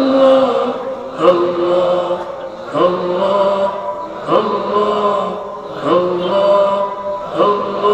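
Male voices chanting dhikr: a short devotional phrase repeated over and over, a new phrase about every second and a half, each one sliding up at the start and then held on a steady note.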